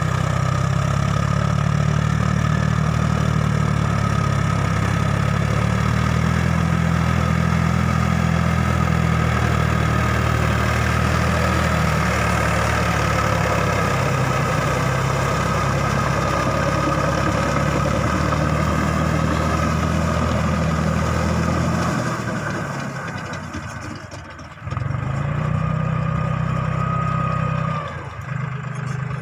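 Farmtrac 6050 4WD tractor's diesel engine running steadily under load while it drives a rotavator through wet paddy soil. The sound fades for a couple of seconds about three-quarters of the way through, then comes back.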